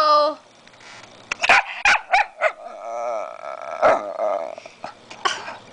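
Miniature pinscher grumbling and whining, upset at his owners touching each other: a string of short grumbles, then a longer wavering whine about three seconds in.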